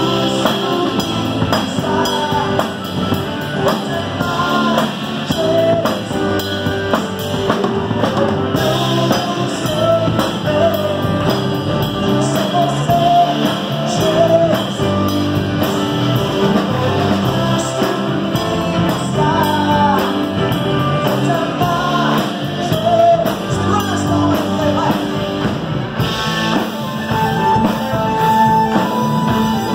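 Live gospel band playing a song: a man singing into a microphone over drum kit, electric bass, electric guitar and keyboard.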